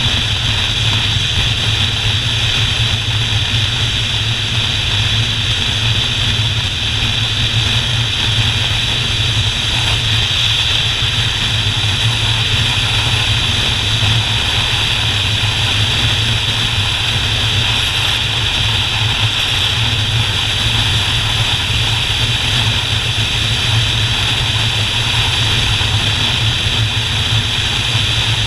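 Motorcycle engine running at a steady cruise with wind rushing over the bike-mounted camera, a low drone and hiss that hold even, with no gear changes or speed changes.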